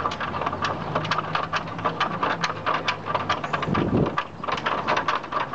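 Playground swinging bridge clattering: its slats and fittings knock irregularly, several times a second, under the footsteps of a toddler and an adult walking across it.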